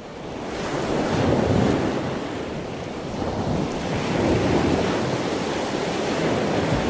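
Ocean waves: a steady rush of surf that fades in and swells and eases twice.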